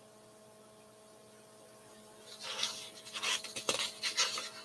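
Near silence for about two seconds, then a run of soft, irregular rustling and handling noises close to the microphone, with one sharp click partway through.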